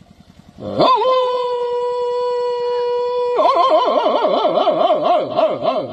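A man's vocal mimicry of a German Shepherd dog: one long, steady howl-like note starting about a second in, which breaks after a few seconds into a fast, wavering howl.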